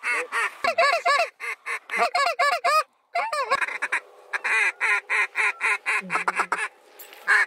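Mallard duck calls blown in fast runs of quacks, about five a second, with a short break near the middle and a denser, overlapping chatter after it as several calls work a circling flock.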